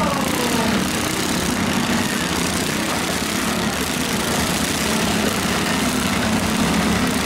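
Several garden tractor engines running together in a steady, unbroken drone.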